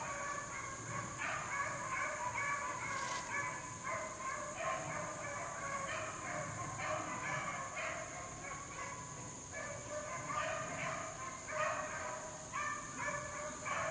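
A pack of beagles baying as they run a rabbit's trail, several voices overlapping in a steady, unbroken chorus.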